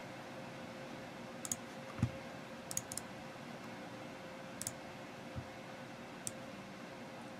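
Sharp clicks at a computer, several coming in quick pairs, spaced out by a second or more. There are two soft low thumps, and a faint steady hum underneath.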